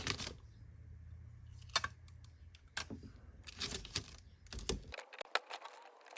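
Masking tape being peeled off a freshly airbrushed diecast model car: scattered small clicks and crackles.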